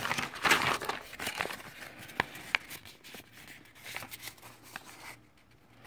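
Paper and plastic packaging rustling and crinkling as a package is searched by hand, densest in the first second, then a few light clicks and handling sounds that fade out near the end.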